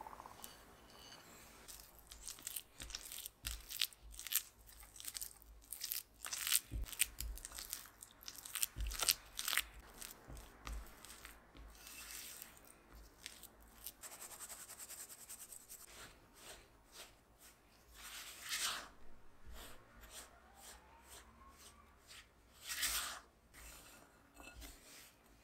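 Silicone spatula mixing tart dough in a glass bowl: repeated scraping strokes against the glass, first through soft creamed butter and egg, then through crumbly flour dough, with a few louder scrapes near the end.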